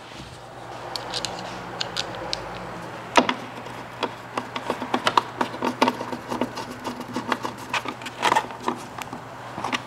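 Irregular small clicks, taps and rubbing of hands working plastic car trim and a trim clip into place, with a louder knock about three seconds in and a quick cluster of knocks near the end, over a faint steady hum.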